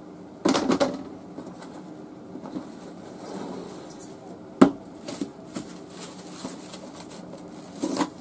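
Kirkland Stretch-Tite plastic food wrap being pulled out of its box, torn off and crinkled around half an onion: a burst of rustling crackle about half a second in, a sharp snap about four and a half seconds in, then scattered small crinkles and a short rustle near the end.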